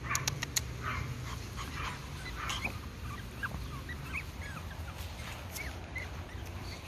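Pomeranian puppies giving short, high-pitched yips and whimpers, scattered throughout, with a few sharp clicks about half a second in.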